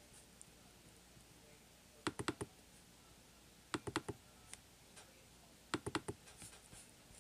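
Computer mouse clicking in three quick bursts of about four clicks each, spaced roughly two seconds apart.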